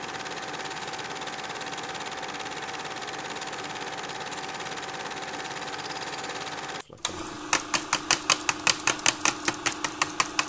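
Film projector running: a steady mechanical whir with a held tone, which breaks off abruptly about seven seconds in and gives way to a rapid, even clicking, about five clicks a second, over a lower hum.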